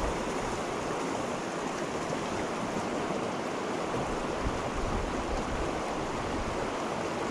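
Small mountain creek rushing steadily, running high and fast with early spring snowmelt runoff.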